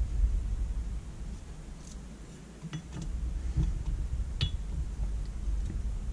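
Light clicks and taps of small metal parts as the armature and brushes of a Holley electric fuel pump motor are handled and fitted back together, a handful of sharp ticks spread over a steady low rumble.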